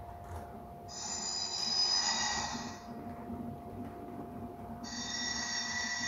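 Iowa Scaled Engineering Squealer sound module playing recorded railway wheel squeal through its small speaker as an HO scale model train passes over its motion sensors. There are two high squeals, one from about a second in lasting about two seconds and another starting near the five-second mark. A steady hum and the low rumble of the model train rolling on the track run underneath.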